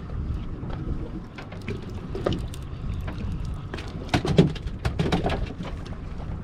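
Water splashing with a run of sharp knocks and clatters on a fishing boat, loudest about four seconds in.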